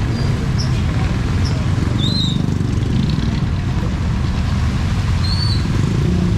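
Low, steady rumble of a motor vehicle's engine running close by, over a continuous wash of street noise, with a few short high chirps.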